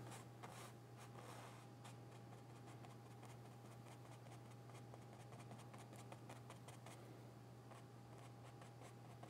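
Faint, soft scratching of a small brush dabbing oil paint onto a stretched canvas, over a steady low hum.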